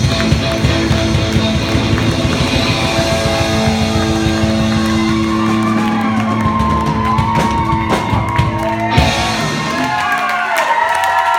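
Live rock band with electric guitars and drums playing the closing bars of a song, breaking off on a final hit about nine seconds in. Audience cheers and whistles rise over the last ringing notes.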